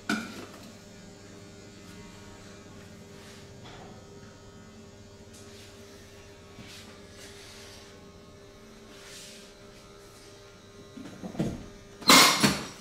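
A steady low electric hum, like a small motor running, with a loud burst of noise lasting about half a second near the end.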